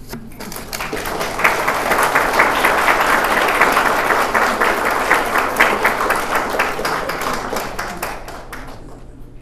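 Audience applauding, swelling over the first second and a half and dying away near the end.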